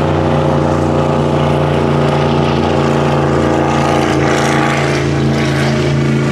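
High-performance speedboat racing past at speed, its engine giving a loud, steady drone.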